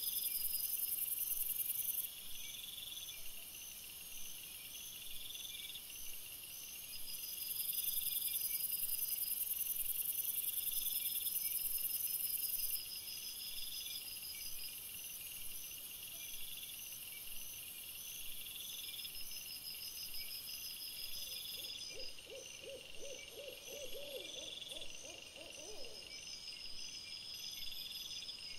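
Night insects chirping: several overlapping high, pulsed trills repeat every couple of seconds, with a louder, very high buzz that sounds at the start and again for about five seconds in the middle. Near the end a short, low warbling trill lasts a few seconds.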